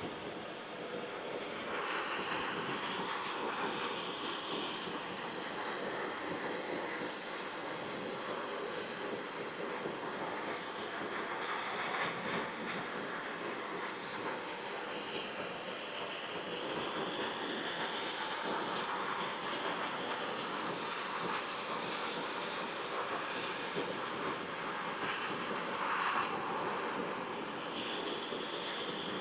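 Gas torch flame burning with a steady rushing hiss as it heats steel bolts until they are soft enough to bend.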